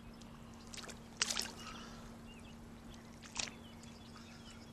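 Short splashes of water as a fish is let go from the hands and a landing net is worked in shallow water, loudest about a second in and again near three and a half seconds.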